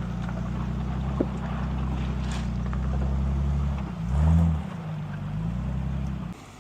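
1973 Chevrolet K20 pickup's engine running at low speed, with a brief rev about four seconds in; the engine sound stops abruptly near the end.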